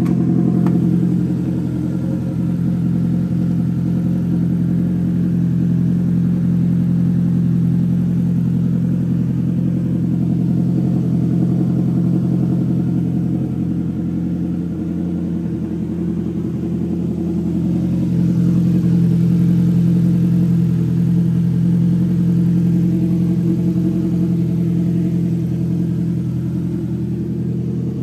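Polaris Slingshot's 2.0-litre four-cylinder ProStar engine idling steadily, growing a little louder for a few seconds past the middle.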